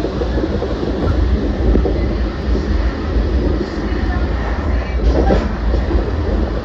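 Limited Express Shinano, a 383 series electric train, running at speed: a steady rumble of wheels on rail, with a brief louder clatter about five seconds in.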